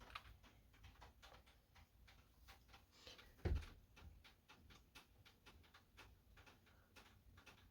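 Near silence with faint scattered light clicks and ticks and one soft thump about three and a half seconds in: handling noise while painting a door handle with black nail polish.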